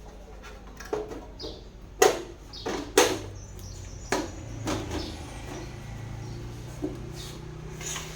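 A string of knocks and clicks, like parts being handled and set down during a mixer repair, the loudest two about two and three seconds in. A low steady hum comes in about halfway and holds.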